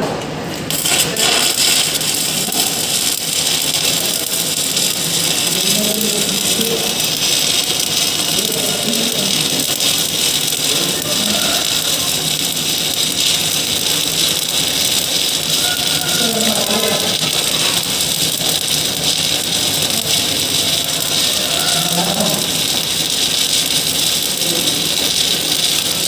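Stick (shielded metal) arc welding: the arc strikes about a second in and then holds a steady, loud, sizzling crackle.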